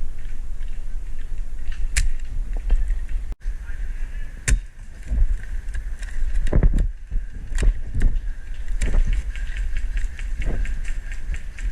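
Heavy low rumble of wind and movement on a body-worn camera's microphone, with scattered sharp clicks and snaps throughout.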